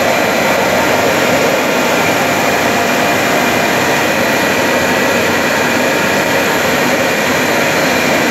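Steady loud machine drone of a running plastic extrusion line, with a few faint steady whines over the noise.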